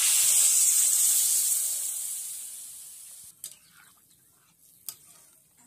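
Water poured into hot oil in a kadai of frying fish and potatoes: a sudden loud sizzle that dies down over about three seconds.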